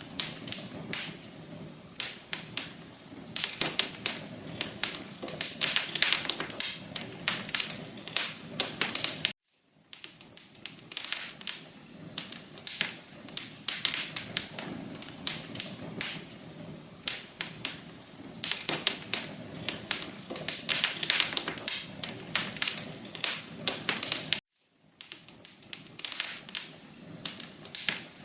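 Wood fire crackling: a dense, irregular run of sharp pops and snaps over a soft hiss. It cuts out for a split second twice.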